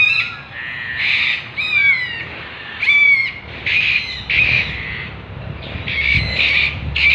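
Macaws squawking in flight: a string of about ten harsh calls, one or two a second, several falling in pitch.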